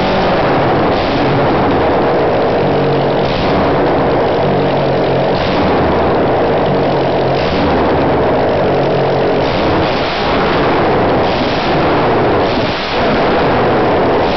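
Honda CB750's inline-four engine running with no exhaust pipes fitted, loud and raw from the open exhaust ports, with short throttle blips about every two seconds.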